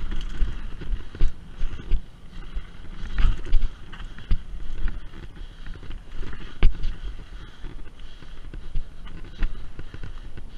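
Mountain bike riding fast down a dirt singletrack: a steady rumble of tyres on dirt and gravel, with frequent knocks and rattles as the bike goes over bumps and rocks. The sharpest knock comes about six and a half seconds in.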